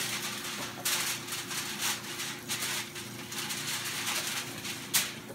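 Aluminium foil crinkling and rustling several times as it is handled over a baking pan, with a sharper crackle about five seconds in.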